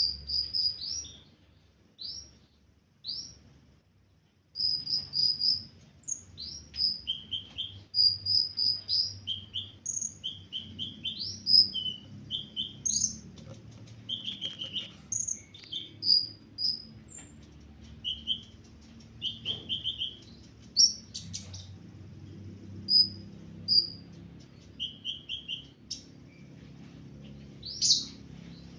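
Olive-backed sunbird (kolibri ninja) singing: quick, high-pitched chirps, sharp upslurred notes and short runs of repeated notes, sparse for the first few seconds and then almost continuous. The bird is singing again after being sunned, bathed and fed, with a faint steady low hum behind it.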